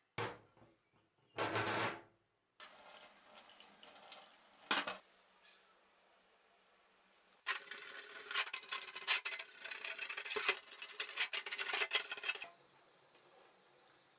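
A brush scrubbing a rusty, painted horseshoe in a stainless steel sink with cleaning agent and water: two short loud splashing or handling bursts in the first two seconds, then a dense scratchy scrubbing for about five seconds in the middle. Water starts running over the horseshoe near the end.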